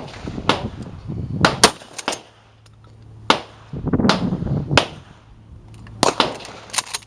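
Several gunshots a second or so apart, sharp cracks each with a short echo, some louder and some fainter, with a faint low hum beneath in the second half.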